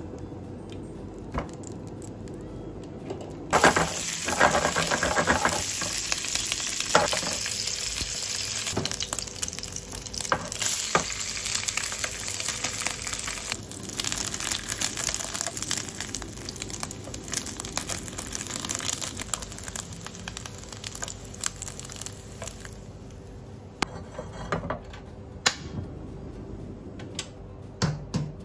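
Scored wiener sausages sizzling in hot oil in a non-stick frying pan. The sizzle starts suddenly about three and a half seconds in and dies down near the end, with a few sharp taps along the way.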